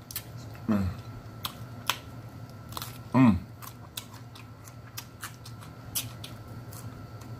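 Close-up eating sounds: a fork clicking on a plate and mouth clicks of chewing. Two brief 'mm' sounds fall in pitch, about a second in and again at about three seconds; the second is the loudest.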